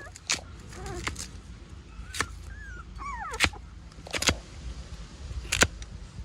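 A series of sharp knocks or cracks, about six at uneven intervals, with a few short high calls between them.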